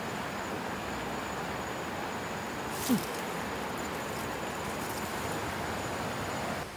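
Outdoor ambience among tall grass: a steady rushing hiss with a thin, steady high-pitched tone over it, and one short sharp sound with a quick downward slide about three seconds in.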